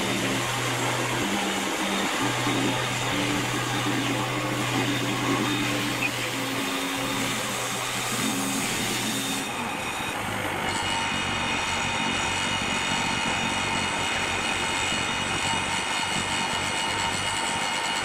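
Norwood LM30 portable band sawmill running steadily under its engine. The sound changes character about ten seconds in.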